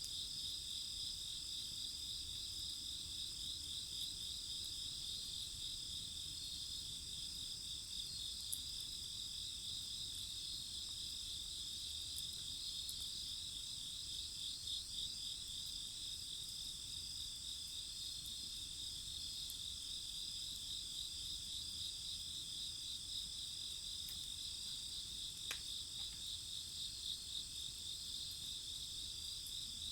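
Chorus of crickets chirring steadily in several overlapping high-pitched bands, with a few faint sharp ticks.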